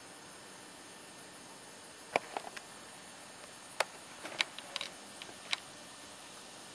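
A scatter of light, sharp clicks and taps from hands handling equipment, starting about two seconds in and bunching up near the end, over a faint steady hiss.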